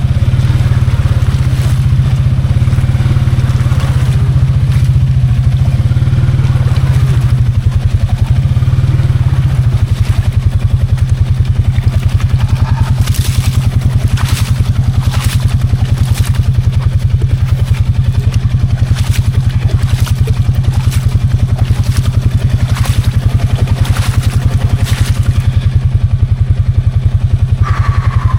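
Can-Am Outlander 700 XMR ATV engine running, settling into a steady, evenly pulsing idle about ten seconds in. A scattering of sharp clicks and clatters sounds over it in the middle.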